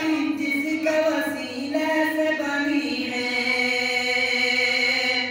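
A man singing a Bengali gazal unaccompanied, moving between sustained notes and then holding one long note for about the last two seconds.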